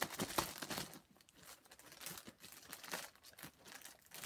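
Clear plastic packaging crinkling and rustling in short, irregular crackles as a silicone mat is pulled out of its bag by hand.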